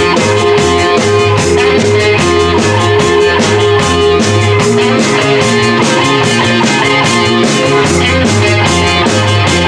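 Four-piece rock band playing live through an instrumental passage: two electric guitars, bass guitar and drum kit, with a steady drum beat under the bass line.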